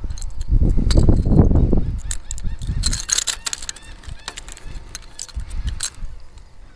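Wind buffeting the microphone with a low rumble, then a run of sharp clicks, rattles and scrapes as pliers, hook and float rig are handled to unhook a small fish.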